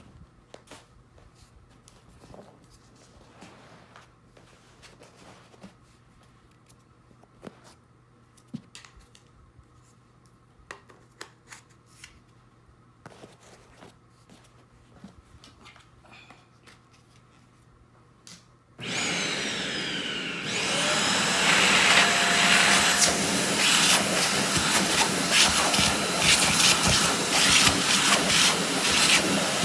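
Soft rustling and clicks of a cloth vacuum bag being handled, then about 19 seconds in a Shark Navigator upright vacuum switches on suddenly and runs loud and steady, its hose tool sucking dirt out of the inside of a Sanitaire cloth outer bag, with crackles of debris going up the hose.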